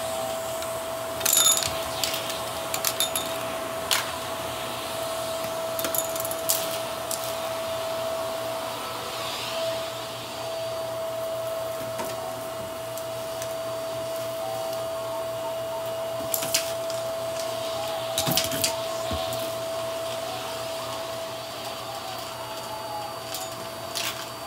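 Upright vacuum cleaner running on carpet, its motor holding a steady whine over a constant rush of airflow, with scattered sharp clicks.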